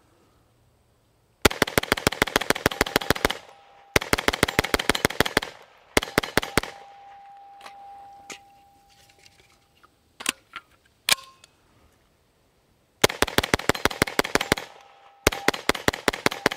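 Stribog SP9A3 9mm roller-delayed pistol fired in fast semi-automatic strings, about eight shots a second, with a few single shots in a lull midway. Steel targets ring after some of the strings. The gun cycles without a stoppage on 115-grain ball ammunition.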